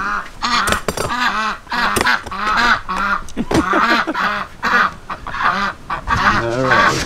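A flock of ducks and geese calling as they are fed: a rapid, overlapping run of loud quacks and honks.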